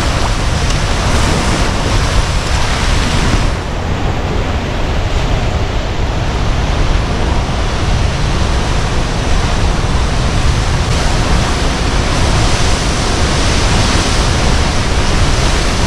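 Floodwater of the Au Sable River rushing below the dam: a loud, steady wash of water noise.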